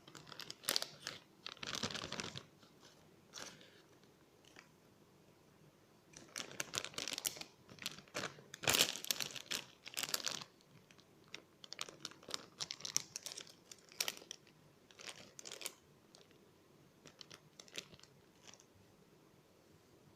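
Hands handling small toys close to the microphone: irregular bursts of crinkling and rustling, with scattered sharp clicks, in three busy stretches separated by quieter pauses.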